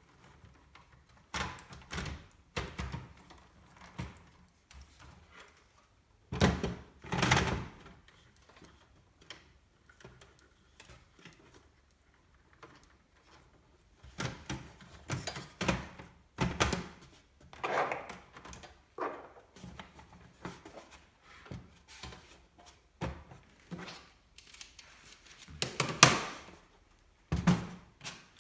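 Irregular clicks, knocks and thunks of computer parts and a PC case being handled and fitted by hand, with a quiet pause in the middle.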